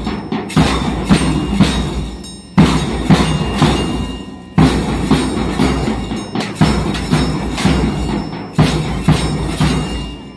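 A small percussion band plays a steady beat on a bass drum, hand cymbals, a triangle and metal shakers, with the low drum strokes loudest. The beat breaks off briefly about every two seconds.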